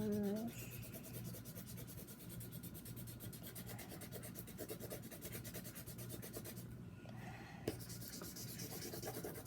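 Faint scratching and rubbing of a pen or marker drawing and colouring on paper.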